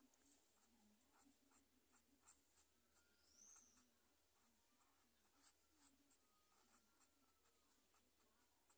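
Faint scratching and tapping of a felt-tip marker on paper in short, quick, irregular strokes as an area is coloured in.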